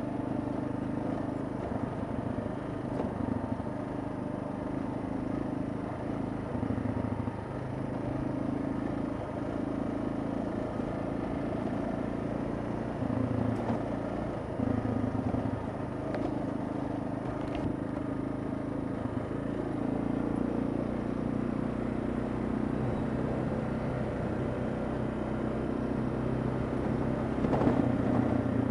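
Kawasaki KLR 650's single-cylinder four-stroke engine running steadily while the motorcycle rides along a dirt track, its pitch shifting a few times as the throttle changes.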